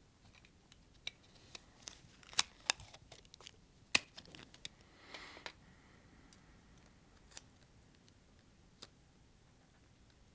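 Small parts and tape being handled on a bench: scattered sharp clicks and taps, with a short rasp about five seconds in as tape is pulled or cut.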